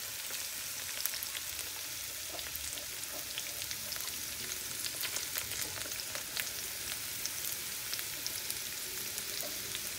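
Chopped onion, garlic and sliced chilli frying in hot oil in a pan: a steady sizzle with many small crackles.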